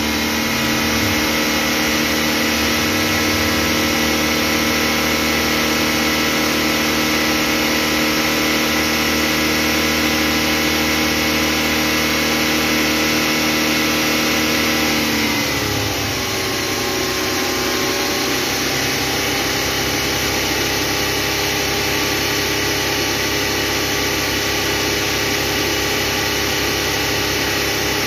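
Suzuki Every's engine idling steadily while it warms up, the radiator fan still off with coolant just under 200 °F. About halfway through, the idle speed drops a little and settles at a lower steady pitch.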